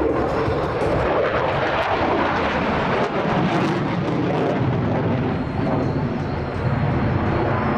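Loud, steady jet noise from a Dassault Rafale's twin Snecma M88 turbofans during a display manoeuvre, dipping slightly a little after the middle.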